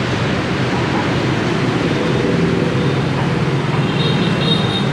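Steady street traffic noise from motorbikes and cars running past, with a brief high thin tone about four seconds in.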